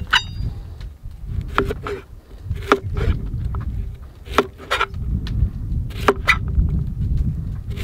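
A broad-bladed kitchen knife chopping zucchini on a plastic cutting board: a string of sharp knocks of the blade meeting the board, many in quick pairs, over a steady low rumble.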